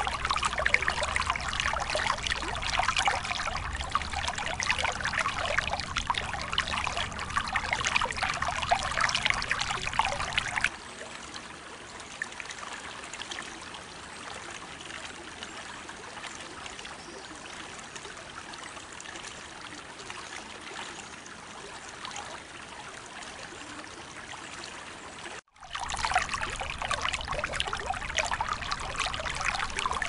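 Creek water trickling and babbling steadily. A little over ten seconds in it drops much quieter for about fifteen seconds, cuts out for a moment, then comes back at full level.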